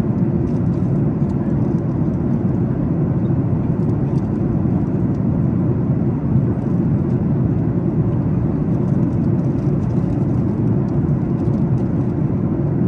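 Steady low drone of cabin noise inside a Boeing 737 MAX 8 at cruising altitude: constant airflow and engine noise with no change in level.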